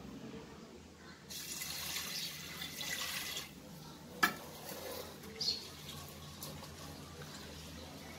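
Water poured from a steel tumbler into a steel pressure cooker over toor dal, splashing for about two seconds. A single sharp clink follows about four seconds in, then quieter water sounds.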